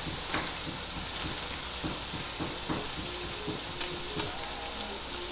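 Chicken, tomatoes and oil frying in a karahi, sizzling steadily, with a few soft taps as spice powder is shaken in from a foil packet.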